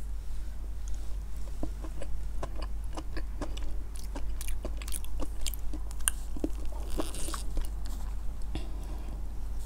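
Close-miked chewing of a soft sakura chiffon cake with whipped cream: moist mouth sounds and a run of small clicks. Near the end a plastic fork cuts into the cake.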